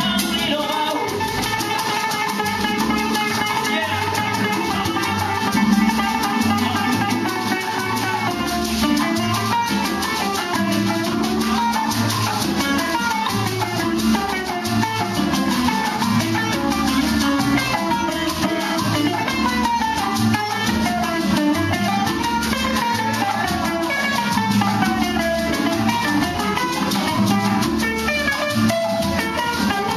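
Cuban son band playing an instrumental passage: a plucked-string melody in quick rising and falling runs over maracas, hand percussion and a steady bass pulse.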